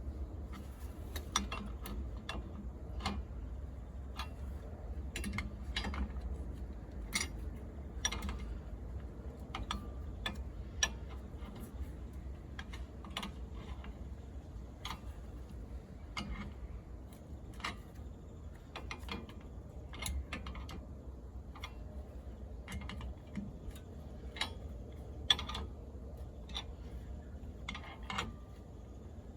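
Irregular sharp clicks and small metallic taps of hand tools being handled during work on a car's rear wheel hub, roughly one a second, with one louder click near the end, over a steady low rumble.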